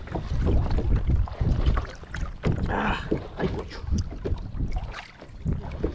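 Wind buffeting the microphone on open water, a low rumble with scattered knocks, and a brief hiss about three seconds in.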